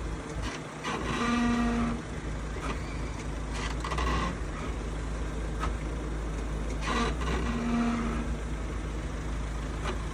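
Mahindra Scorpio-N running at idle with a short pitched groan, about a second long, coming and going a few times. It is the abnormal noise the owner hears when shifting between R, D and Park, which he suspects may be a transmission problem.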